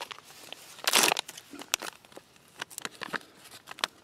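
MRE vanilla pound cake pouch being torn open and handled: a loud rip about a second in, then scattered crinkles of the laminated packaging.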